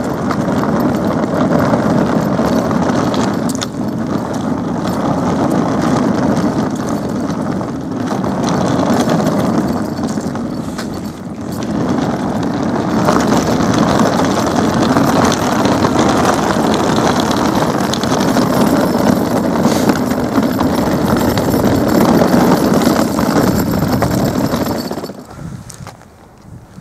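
Wind buffeting a handheld camera's microphone outdoors: a loud, steady rumbling noise with no tone in it, easing briefly a few times and falling away near the end.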